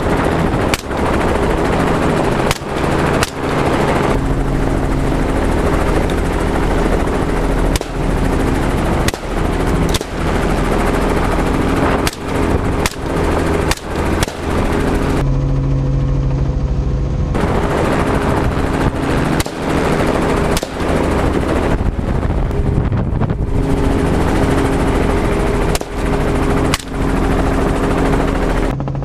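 Rapid semi-automatic rifle shots from AR-style rifles, fired irregularly about one or two a second, over the steady drone of a helicopter's engine and rotor. The shooting stops for about two seconds around the middle, leaving only the helicopter.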